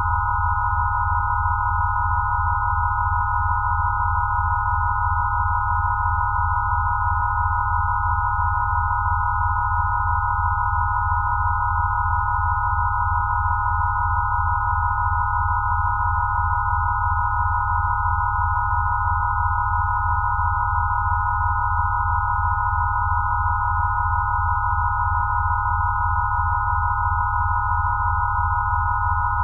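Electronically generated Rife-style healing-frequency tones: several steady pure tones stacked close together around 1 kHz, over low tones that pulse in an even, rapid rhythm. The sound holds unchanged without a break.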